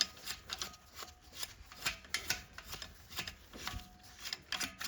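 Wrench working on a metal fitting of an air compressor: an irregular run of small metal clicks and scrapes.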